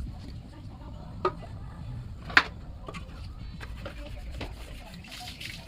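Scattered light clicks and knocks of things being handled, with one sharp click about two and a half seconds in, over a low steady hum.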